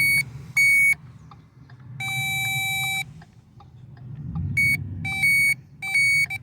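Power probe circuit tester beeping in short repeated high beeps as its tip picks up the turn signal's pulsing power in the mirror wiring, with one longer, lower-pitched tone about two seconds in. A low steady hum runs underneath.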